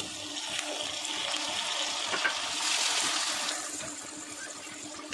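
Freshly cut tomatoes sizzling in hot oil with sautéed onions and green chillies in a pan; the hiss swells around the middle and eases off toward the end.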